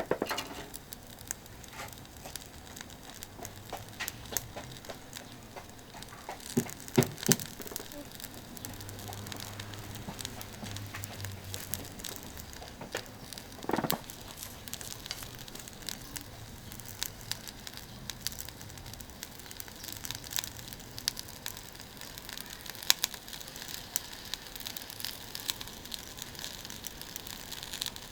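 Faint, steady crackling and sizzling from a charcoal grill with a thick iron plate being seasoned with oil on it. A few louder knocks come about a quarter and about half way through.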